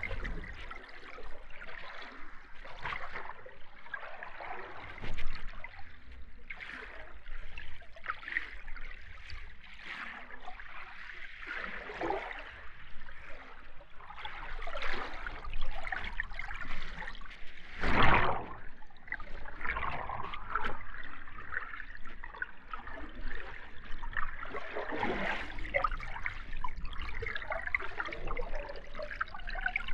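Underwater ambience: muffled bubbling and gurgling water that swells and fades irregularly, with a louder surge about 18 seconds in.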